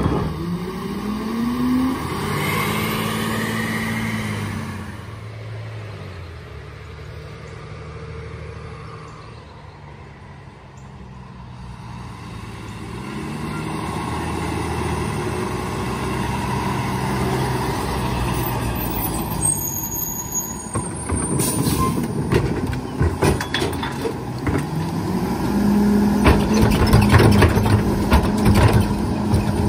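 Diesel engine of a Heil rear-loader garbage truck revving up and holding at high speed, then dropping and fading to a low point before coming back up as the truck approaches. Near the end the engine is held at a steady high speed to drive the cart tipper, with the rattles and bangs of a wheeled trash cart being lifted and dumped into the hopper.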